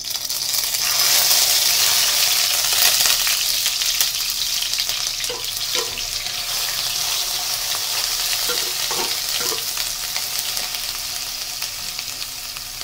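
Ground onion, green chilli and mustard paste hitting very hot oil in a non-stick wok: a loud sizzle and crackle of spattering that starts at once and slowly settles into a steadier fry as a wooden spatula stirs it. The oil is a little too hot, which makes it spatter hard.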